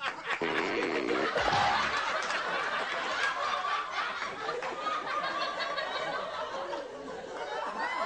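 A crowd laughing and chuckling continuously, many voices overlapping.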